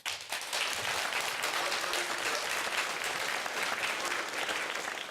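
Studio audience applauding, many hands clapping at once, starting abruptly and dying down after about five seconds.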